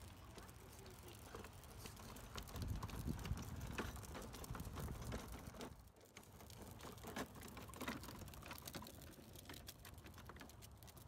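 Abarth pedal go-kart rolling along a concrete path: a faint low rumble from the wheels with irregular clicks and taps, loudest a couple of seconds in.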